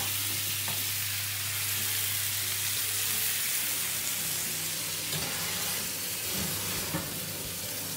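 Duck breasts sizzling in a hot frying pan with a steady hiss of fat. A low hum stops about three seconds in, and a few light knocks follow later as the pan is set into the oven.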